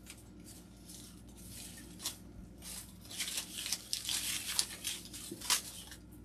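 Rustling and crinkling of artificial flower stems and leaves being handled and worked into a grapevine wreath, heaviest about halfway through, with a few sharp clicks.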